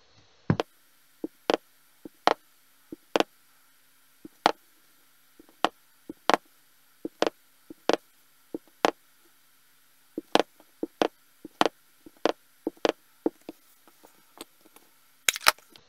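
Clear acrylic stamp block clacking down again and again onto the ink pad and onto card on a wooden table: a string of short, sharp knocks, irregularly spaced about one or two a second.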